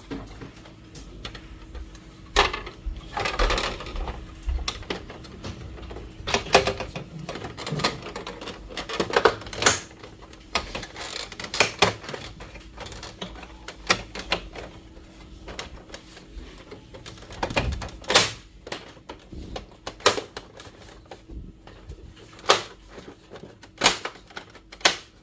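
Plastic clicks, knocks and scraping from the housing of a Brother DCP-T310 inkjet printer as its panels are handled and snapped closed during reassembly. The clicks come irregularly, with a few longer scrapes between them.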